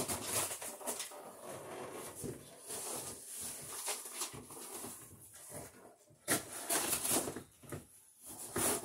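Hand screwdriver tightening a ground screw into a sheet-metal bathroom exhaust fan housing: a run of irregular scraping strokes, loudest a little past halfway through.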